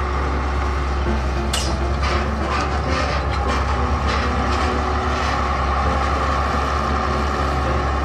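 Excavator's diesel engine running with a steady deep rumble, with a run of sharp metallic clanks from about a second and a half in until about five seconds in.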